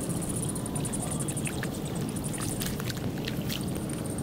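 Outdoor ambience: a low, steady rumble like wind on the microphone, with a high, pulsing trill above it and a few light ticks.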